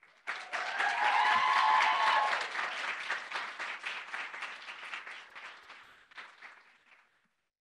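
Small audience clapping. It starts suddenly, is loudest in the first couple of seconds, then thins out and dies away over about five seconds.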